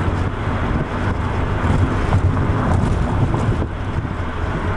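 Steady car cabin noise while driving: a low engine drone under tyre and wind noise, with no change in pace.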